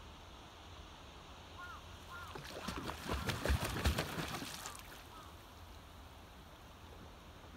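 Young mute swan bathing, beating its wings on the water and splashing for about two and a half seconds near the middle.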